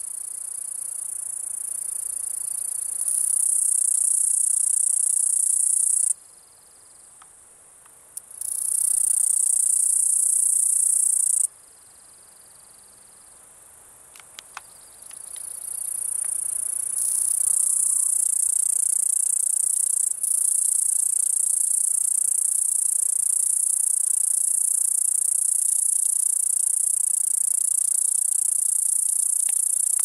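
A cicada singing: a loud, continuous high-pitched buzz. It stops twice, for about two seconds some six seconds in and for about four seconds near the middle, then builds back up and holds steady.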